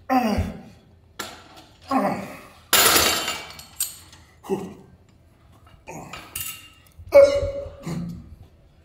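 Weight stack of a cable pulldown machine clinking and clanking with each repetition, a sound every second or so, mixed with the lifter's hard straining breaths.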